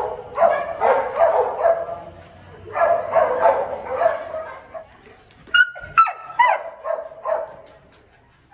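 Crated dogs barking in repeated bouts, with a few sharp high yelps about five and a half seconds in; the barking dies away near the end.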